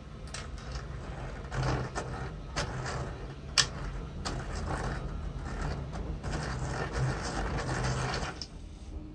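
Boston hand-crank pencil sharpener being cranked with a pencil in it: the cutters grind and shave the wood in uneven bursts, starting about a second and a half in and stopping near the end, with one sharp click about three and a half seconds in.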